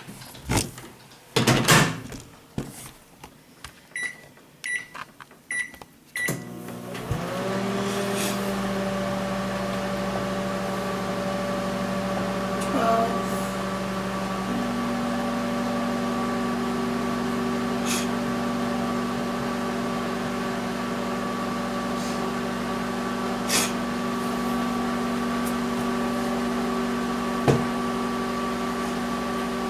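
Microwave oven: a few knocks, then four short beeps, after which the oven starts about six seconds in and runs with a steady hum as it heats a bar of soap.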